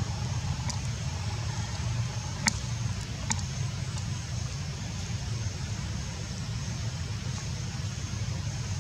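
Steady low background rumble with a faint high hiss, broken by a few sharp clicks between about two and a half and three and a half seconds in.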